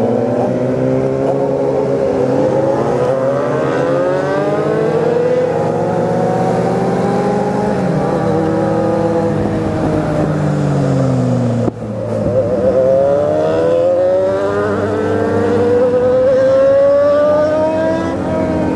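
Motorcycle engines under way. The Kawasaki Z750's inline-four rises in pitch as it accelerates, falls as it slows, and rises again, with other bikes' engines overlapping at different pitches. About twelve seconds in, the sound dips sharply for a moment before climbing again.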